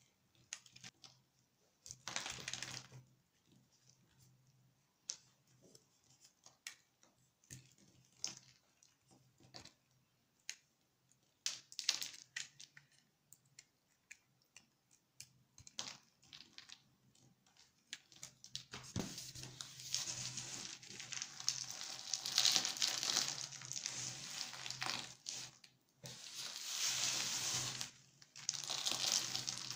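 Dry soap bar scored into tiny cubes being cut with a metal blade: crisp snaps and short crunches as rows of cubes break off. About two-thirds of the way in it turns into a steady crackling rustle of loose soap cubes being crushed, scooped and sifted by hand, with a brief pause near the end.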